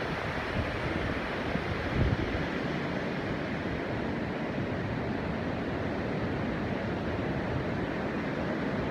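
Wind buffeting the microphone as a steady, even rush of noise, with a brief stronger low gust about two seconds in. No bird calls stand out.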